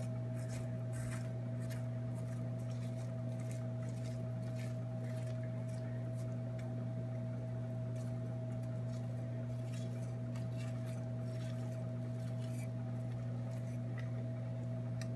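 A fork scraping and raking the cooked flesh of a roasted spaghetti squash into strands, giving light, irregular scratches and clicks. A steady low hum runs underneath throughout.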